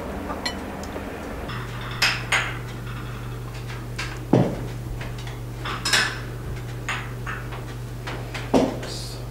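Dishes and cutlery clinking and knocking: a scatter of separate strikes, the loudest a little over four seconds in. A steady low hum starts about a second and a half in.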